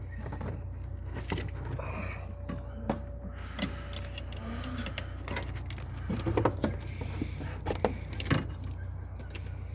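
Scattered metallic clicks, clinks and knocks of hand tools and engine parts being handled, busier in the second half, over a steady low hum.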